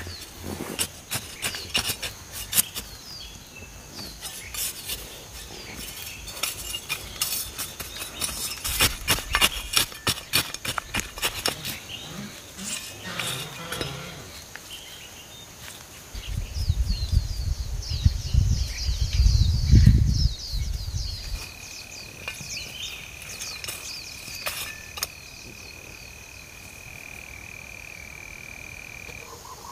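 A small metal hand trowel digging into dry, clumpy soil: many quick scrapes and clinks through the first half. Near the middle a loud low rumble lasts about four seconds, and later a steady high tone holds for several seconds over a constant high hiss.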